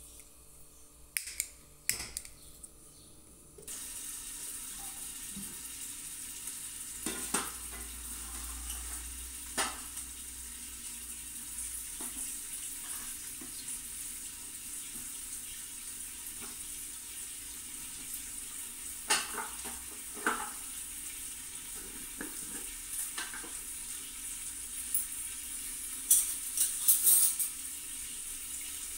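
Whole potatoes being put one by one into a pot of water, with a few splashes and knocks of the pot and utensils, over a steady kitchen hiss that starts a few seconds in. A busier cluster of splashes and clatter comes near the end.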